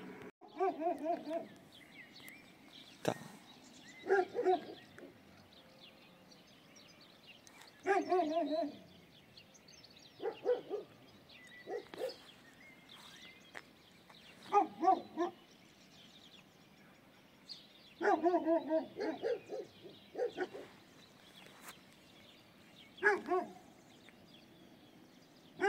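Dogs barking in short, repeated bouts, about eight bouts of a few barks each with quiet gaps between. They are guard dogs giving warning barks at a stranger walking past their ground.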